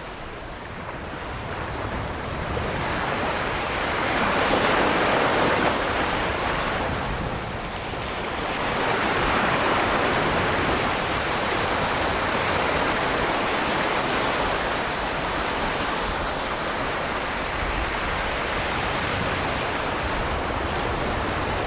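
Sea surf washing ashore, swelling about four seconds in and again about nine seconds in, then a steady wash.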